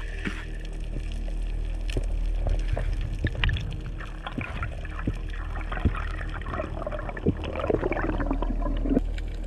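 Muffled underwater sound heard through a dive camera's housing: a steady low rumble of water with scattered sharp clicks, and a stretch of bubbling gurgles near the end.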